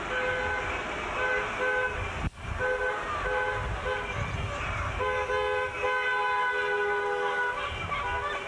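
Car horns tooting from a convoy of passing taxis, several horns overlapping: short repeated toots at first, then longer held blasts from about halfway, over the rumble of street traffic. The sound cuts out briefly about two seconds in.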